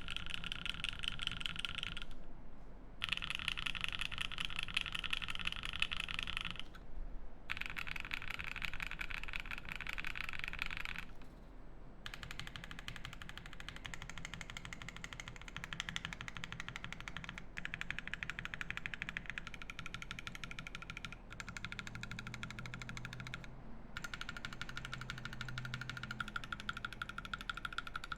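Fast typing on a Keycult No.2/65 brass mechanical keyboard with lubed Creamsicle switches, a polycarbonate plate and GMK keycaps: a dense stream of keystroke clacks, broken by a few brief pauses.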